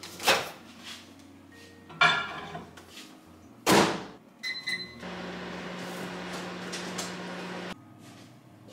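Over-the-range microwave oven being loaded and started: a few knocks as the door is handled, a solid clunk as it shuts, and a couple of keypad beeps. It then runs with a steady hum, which cuts off abruptly near the end.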